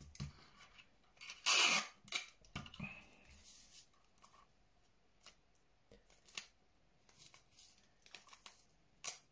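Paper and tape handling while a cardboard tube is wrapped: irregular rustling, crinkling and small clicks. The loudest is a short rustling burst about a second and a half in, and there is a sharp click near the end.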